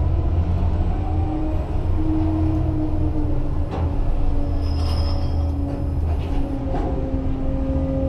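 Machinery of a Liebherr LHM 550 mobile harbour crane heard from the operator's cab as the crane slews: a steady low hum with a whine that drifts slightly in pitch, and a brief high squeal about five seconds in.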